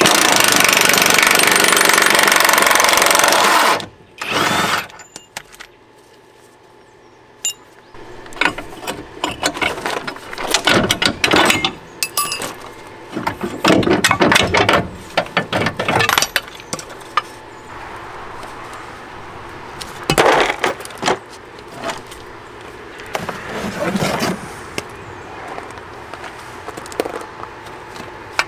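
Cordless impact wrench hammering on a front lower control arm bolt for about four seconds, then a second short burst. After that, scattered metal clanks and knocks of tools and suspension parts being handled.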